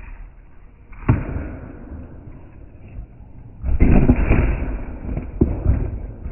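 Surfskate on paving slabs during a failed ollie: a knock about a second in, then a loud rattling clatter of deck and wheels on the pavement around four seconds in as the board hits the box, followed by a couple of sharper knocks as the board tips over.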